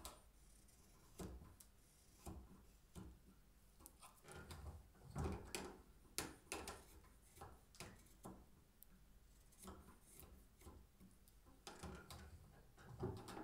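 Carving knife whittling a wooden stick clamped in a shaving horse: a series of short, faint scraping cuts of the blade shaving the wood, irregularly spaced, a few louder strokes about halfway through and near the end.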